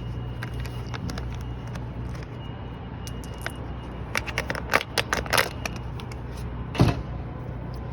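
Clicks and light rattling from a just-picked Master Lock padlock and lock picks being handled, bunched about halfway through, with one louder knock near the end, over a steady low hum.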